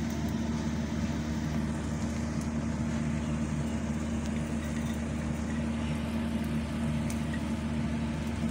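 A steady low machine hum, with an omelette frying in oil in a small pan, faintly sizzling.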